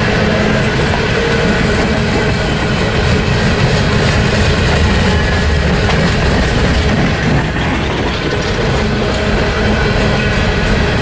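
Freight train of open-top hopper cars rolling past close by: a steady, loud rumble of steel wheels on rail with clickety-clack over the rail joints and a thin metallic ringing from the wheels.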